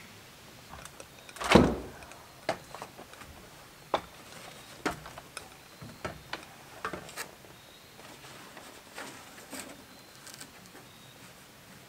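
Scattered knocks and clanks of a person climbing an aluminium extension ladder, boots and hands striking the rungs. There is one louder thump about a second and a half in, then a dozen irregular knocks over the next several seconds.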